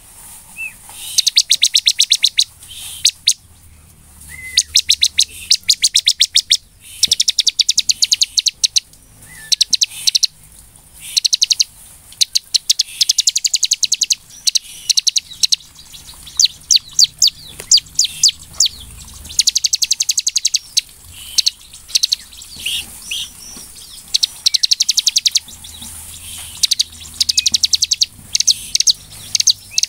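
Bar-winged prinia (ciblek) singing energetically: fast, high-pitched trills of sharp, clipped notes, each burst lasting a second or two and repeated over and over with short gaps.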